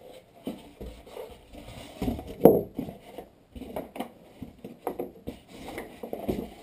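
Stereo parts and their packaging being handled during an unboxing: irregular knocks, scrapes and rustles, with the loudest knock about two and a half seconds in.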